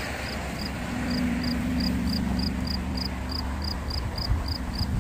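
An insect chirping steadily, about three short high chirps a second, over a low rumble. A steady low drone, like a distant engine, comes in about a second in and fades out past the middle.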